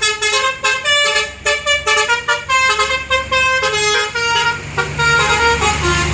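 A tour bus's Basuri telolet horn playing a quick tune of short stepped notes, several a second. The bus's engine runs underneath and comes up near the end as the tune stops.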